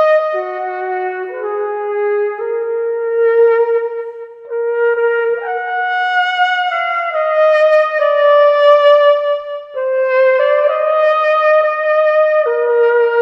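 Slow solo melody on a trumpet-like brass instrument, one long held note after another, stepping up and down in pitch.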